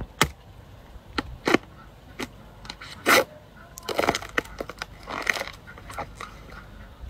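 Short-handled hoe chopping into the base of fresh bamboo shoots and the soil around them: an irregular series of sharp chops and cracks, about one a second, as the shoots are cut free.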